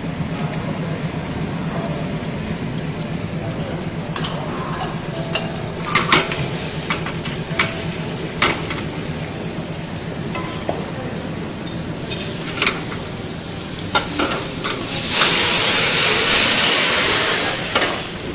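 Seafood frying in a small pan over a gas burner, with sharp clinks of utensils against pan and plate over a steady low hum. About fifteen seconds in, the pan sizzles loudly for about two and a half seconds as flames flare up from it.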